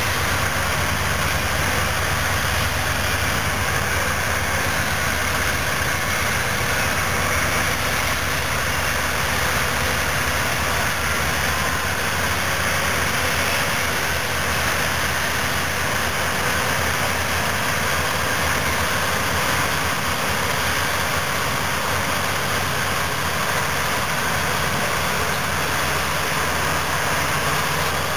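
Heavy diesel engines of a Caterpillar 651B wheel tractor scraper and a Caterpillar D10N crawler dozer repowered with a C27 engine, running steadily as the dozer push-loads the scraper. The sound is even, with no sharp knocks or changes.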